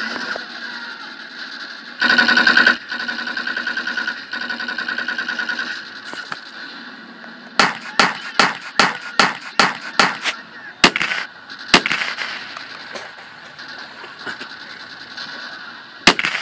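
Gunfire: rapid machine-gun fire, loudest in a burst about two seconds in and rattling on more quietly until about six seconds. Then comes a string of about ten sharp single shots, a few tenths of a second apart, and one more shot near the end.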